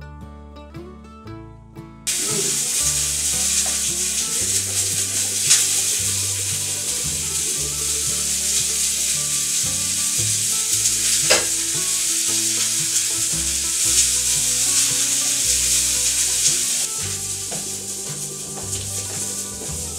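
Background music with a plucked melody and a stepping bass line. About two seconds in, a loud, steady hiss starts abruptly over it and eases a little near the end.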